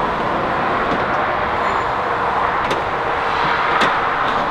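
Steady indoor background noise, an even hiss-like hum, with a couple of faint knocks from someone stepping up through a camper's side entry door.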